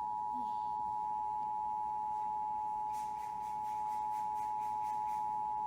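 Emergency Alert System attention signal: the two-tone alert beep, two pitches sounded together and held steady. It marks the start of an emergency alert broadcast.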